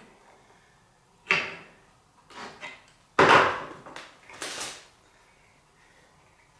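Several short knocks and scuffs from hands handling the wooden organ keyframe while greasing its metal back pins. The loudest comes a little past three seconds in.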